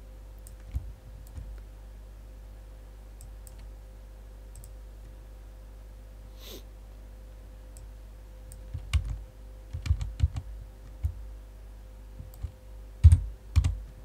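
Scattered clicks of a computer mouse and keyboard, a few early on and a denser run in the second half, over a steady low electrical hum.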